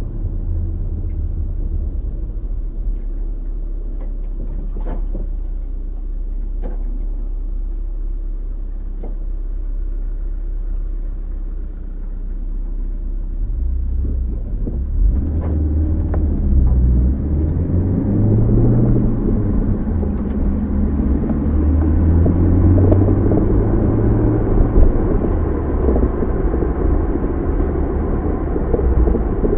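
Car interior driving noise picked up by a dashcam: a steady low rumble of engine and tyres on the road, which grows louder and fuller about halfway through.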